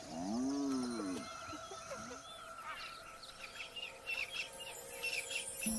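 A spotted hyena gives one low call that rises and falls, near the start. From about two seconds in, birds chirp in quick, repeated short notes.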